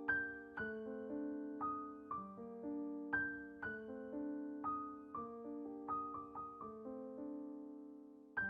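Background music: gentle piano notes played one after another, each ringing and fading.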